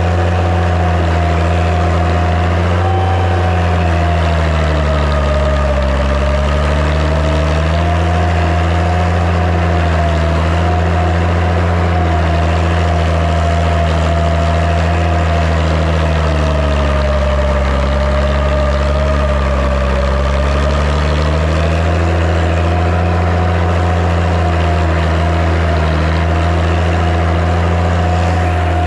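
Six-cylinder diesel engine of a Massey Ferguson 95X tractor running steadily, with a whine riding above the engine note. The engine pitch sags slightly twice and recovers.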